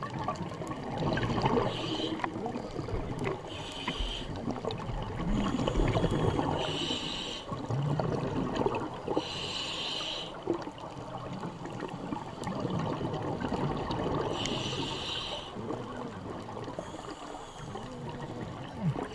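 Scuba diver's breathing through a regulator underwater: a hiss every few seconds, with bubbling and gurgling of exhaled air between.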